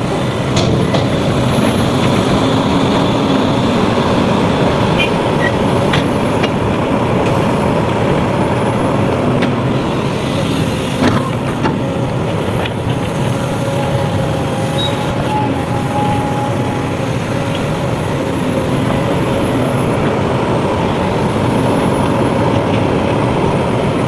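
Heavy diesel earthmoving machinery running steadily under load, with a few sharp knocks and clanks scattered through.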